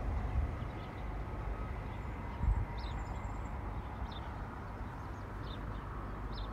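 Outdoor ambience: a steady low rumble, with a small bird chirping in short high notes every second or so and a single brief thump about two and a half seconds in.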